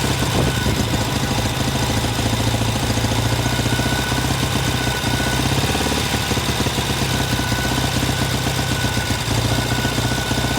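Classic Norton motorcycle engine running steadily with a fast, even pulse, on a test run after its spark plug threads were repaired.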